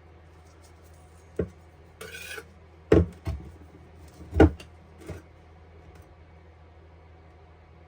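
A handful of scattered knocks, the loudest a little past the middle, with a short scrape between the first two.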